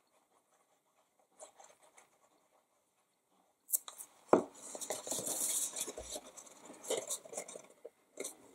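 A plastic liquid-glue bottle set down on the work mat with two sharp clicks, followed by stiff cardstock rustling and crinkling as the glued box blank is picked up and its sides are folded together.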